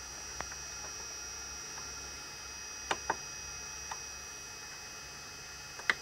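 Front-panel buttons of a Roland Juno-G synthesizer clicking under a finger: a few scattered clicks, a quick double click about halfway and the loudest click near the end. Under them runs a steady faint hiss with a thin high whine.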